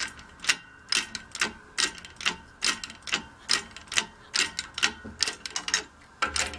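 Hydraulic shop press being pumped to push a rubber bushing out of a car's rear lower control arm: a steady run of sharp mechanical clicks, about two a second and sometimes in close pairs, with the strokes of the jack.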